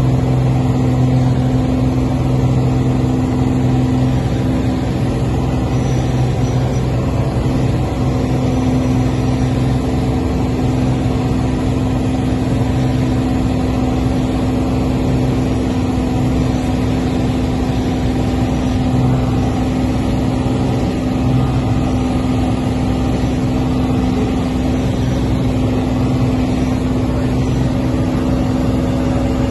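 Piper Turbo Arrow IV's turbocharged six-cylinder engine and propeller at full takeoff power, a steady drone heard from inside the cockpit through the end of the takeoff roll and the climb-out.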